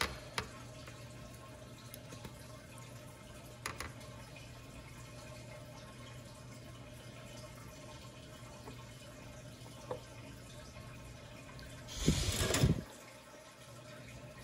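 Quiet handling noise at a workbench: a steady low hum with a few faint clicks and ticks, then about twelve seconds in a brief, loud rustle and clatter, after which the hum stops.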